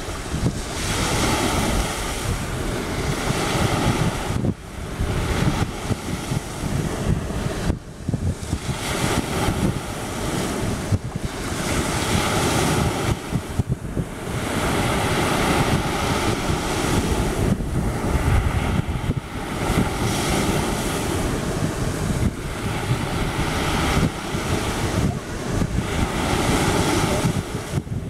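Small sea waves breaking and washing up on a sandy beach, their noise swelling and easing with each wave, with wind buffeting the microphone.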